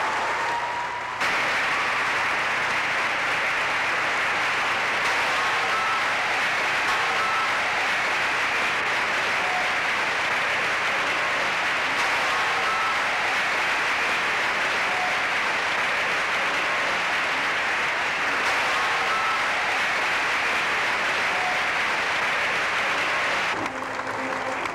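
Large crowd applauding steadily, the clapping jumping louder about a second in.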